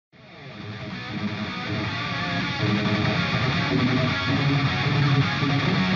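Background music with guitar, fading in from silence over about the first second.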